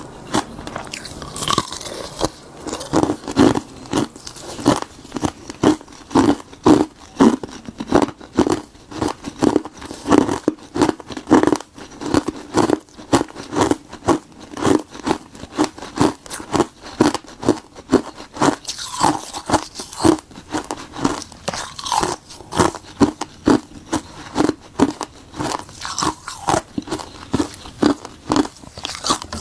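Close-miked crunching of frozen bitter buckwheat tea ice being bitten and chewed: a steady run of crisp, cracking crunches, about two to three a second.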